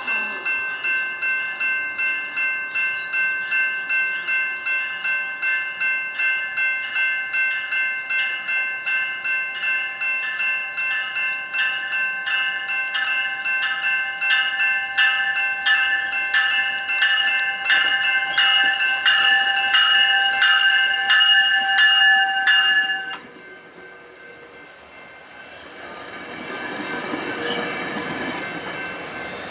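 Warning bell ringing about twice a second, growing louder as the GO train's cab car approaches, then stopping suddenly about three-quarters of the way through. The bilevel coaches then roll past with rising wheel and rail noise.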